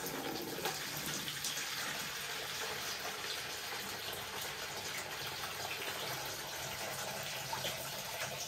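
Water pouring in a steady stream from an upturned glass orchid vase into a plastic bucket, as the Phalaenopsis's soaked bark and roots drain after watering.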